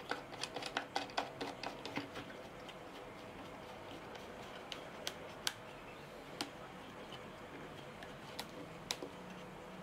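Small clicks and taps from hands turning and tightening the wooden knob bolts that hold an angle grinder in its wooden saw housing: a quick run of clicks in the first two seconds, then a few scattered single clicks.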